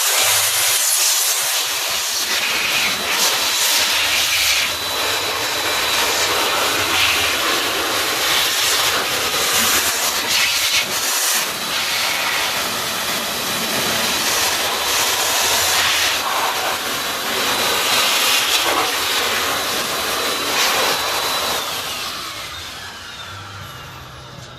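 Electric air blower running, a loud rush of air with a steady high motor whine, blowing dust out of a power inverter. About 21 seconds in it is switched off, and the whine falls in pitch and the rush fades as the motor spins down.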